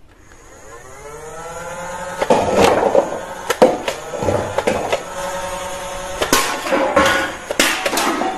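Electric toy foam-dart blaster: its motor whirs up in rising pitch over the first couple of seconds, then runs steadily while it fires. About seven sharp clacks sound as darts knock over paper cups and send tin cans clattering.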